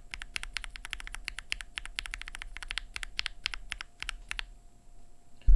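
Fast typing on a mechanical keyboard fitted with JWK Giant V3 linear switches, in an aluminium-plate board with GMK keycaps: a quick, even run of key strikes that stops about four and a half seconds in.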